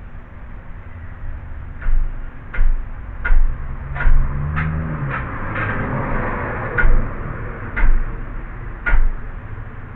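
About eight hammer blows, spaced roughly a second apart, on a steel bracket clamped in a vise as it is bent into shape, each a sharp metallic knock with a short ring. A low rumble swells and fades in the middle.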